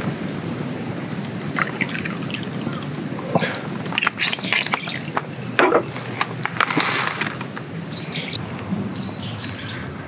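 Liquid poured into a small square glass sake cup, a short rushing pour about two-thirds of the way in, among scattered sharp clicks and taps. A couple of short bird chirps come near the end.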